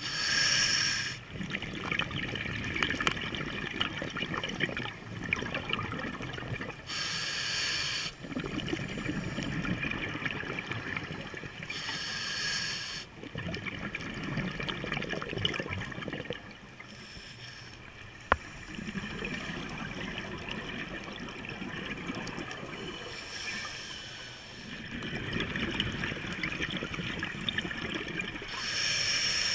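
Scuba diver breathing through a regulator, heard underwater: a hissing rush of exhaled bubbles about every five to six seconds, with quieter, lower breathing noise between them.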